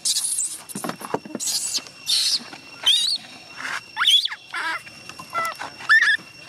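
Baby macaque crying: a string of short, high-pitched squeals and screeches, about one a second, many sliding up and down in pitch.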